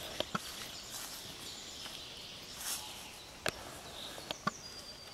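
Footsteps on a dirt forest path with a few sharp clicks, and birds chirping in the background.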